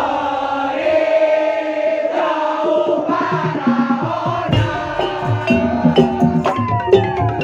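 Madurese ul daul music: a held melodic line that slides and wavers in pitch, with the drums coming back in about three seconds in and keeping a steady beat.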